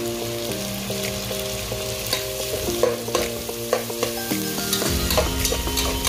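Sliced hotdogs sizzling and crackling in hot oil with onion and garlic in a pot, with a spatula stirring through them. A simple melody of background music plays underneath.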